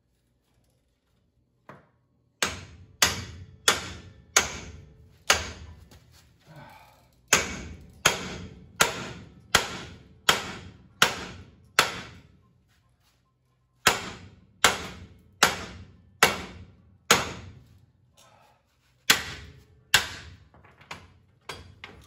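Small sledgehammer hitting the steel steering knuckle of a 1970 Chevy C10's front drum-brake assembly, hammering at a seized ball joint to break it loose. There are about thirty sharp, ringing metal-on-metal blows, roughly two a second, in three runs with short pauses between.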